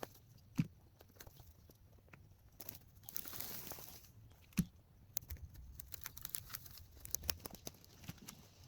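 Dry branches and brush crackling and rustling as they are handled and dragged, with scattered small snaps and two soft thumps.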